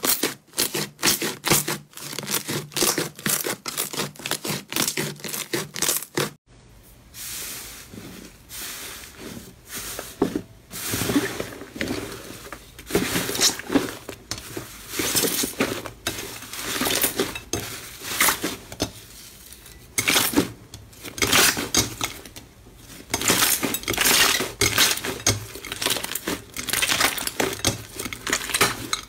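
Slime being squeezed and pressed by hand, giving dense runs of crackling, popping clicks that swell and fade. The sound changes abruptly about six seconds in, as one slime clip gives way to another.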